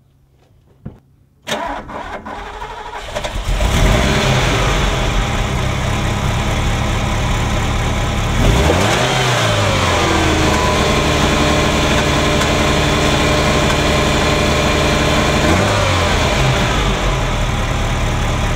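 Ferrari Mondial V8 engine cranked and starting about a second and a half in, catching after a couple of seconds, then running rough, popping and banging with an uneven thrumming, revved up and back down once in the middle and briefly again near the end. The misfire is on cylinders 5–8 with the timing out, which the owner suspects is a sensor fault.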